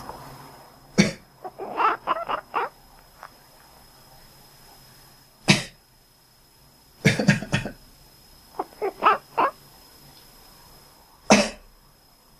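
A person coughs sharply several times, and after the first cough and again after a quick burst of coughs, a cat answers with a rapid run of four or five short, duck-like quacking calls.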